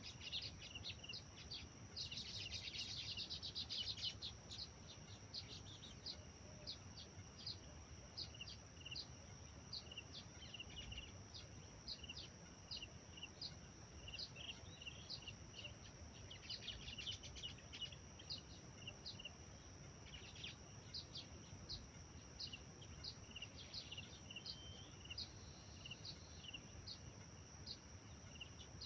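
Wild birds chirping: one bird repeats a short high chirp a little more than once a second, with bursts of busier twittering about two seconds in and again around the middle. Underneath runs a steady high-pitched drone.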